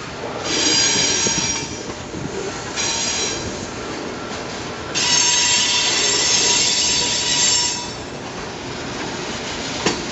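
Freight train cars rolling past with their wheels squealing in stretches, high screeching tones over the rumble of the rolling cars, loudest from about five to eight seconds in. A single sharp clank comes near the end.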